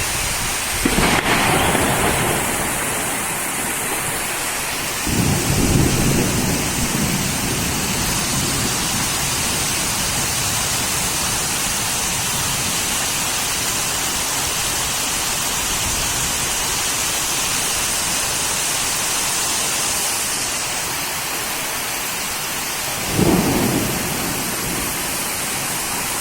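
Heavy rain falling steadily, with three short low rumbles of thunder: one about a second in, a louder one around five seconds in, and one near the end.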